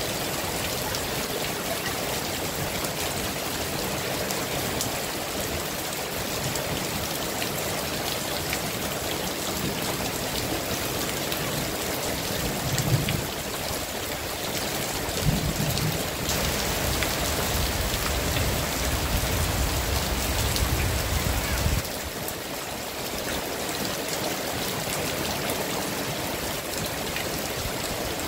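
Heavy rain falling steadily. Midway, a low rumble with a couple of thumps comes in for about ten seconds and stops suddenly.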